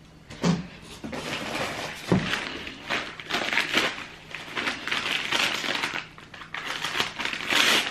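Brown paper parcel being handled and cut open with a box cutter: irregular crinkling and rustling of the paper wrapping, with a dull knock about two seconds in.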